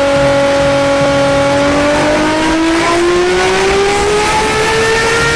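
A vehicle engine running at a steady pitch, then climbing slowly and smoothly in pitch from about two seconds in as it speeds up.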